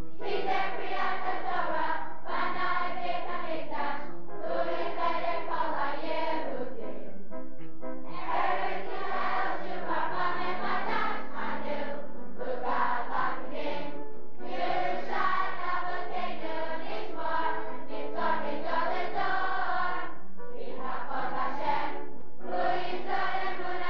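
A large group of young campers singing together in unison, phrase by phrase with short breaks between phrases.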